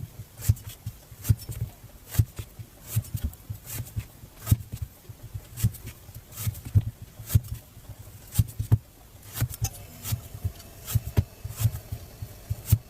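Knife strokes cutting fruit on a cutting board: a string of irregular short taps and thuds, one to three a second.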